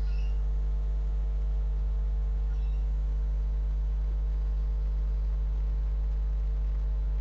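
Steady electrical hum picked up by the recording microphone: a deep, unchanging drone with a few faint level tones above it.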